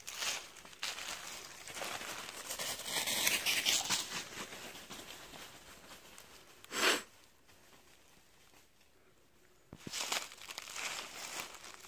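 Footsteps crunching and rustling through dry fallen leaves, with one short, louder rasp a little before seven seconds in. The rustling stops for about two and a half seconds and then starts again.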